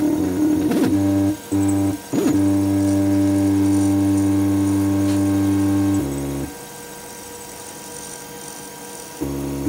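3D printer's stepper motors running with a steady pitched whine as the axes move. It cuts out briefly twice in the first two seconds, changes pitch about six seconds in and drops to a quieter hum for about three seconds, then comes back loud near the end.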